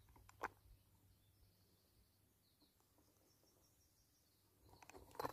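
Near silence: faint outdoor ambience by still water, with one light click about half a second in.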